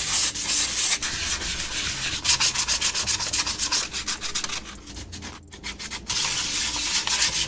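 Fine-grit sandpaper rubbing over a filler-primed 3D-printed plastic part in quick back-and-forth strokes, with a brief pause about five and a half seconds in.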